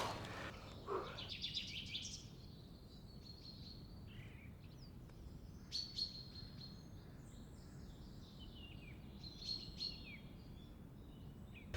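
Small songbirds calling: faint thin high calls and short falling chirps scattered throughout, with a brief click about six seconds in.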